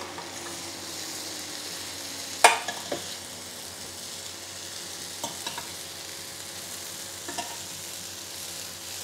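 Chicken pieces sizzling on the hot grill plate of a Ninja Foodi Max health grill while metal tongs turn them, with sharp clacks of the tongs on the plate, the loudest about two and a half seconds in and a few lighter ones later. A low hum falls away over the first few seconds as the grill's fan winds down with the lid open.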